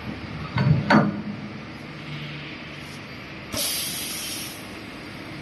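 Two sharp metal clunks as a roller workpiece is set into the chuck of an automatic circular seam welder. About three and a half seconds in comes a sudden hiss of compressed air from the machine's pneumatics, lasting about a second.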